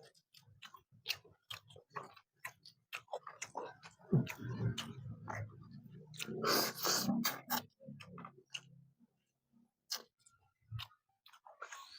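Close-miked eating sounds from chewing a snapper fish head: many short, wet smacking clicks, with two longer, noisier stretches about four and seven seconds in.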